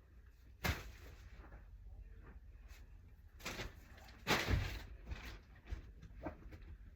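A sharp knock, then a couple of heavier thuds with a brushing sound a few seconds later, and a few light clicks.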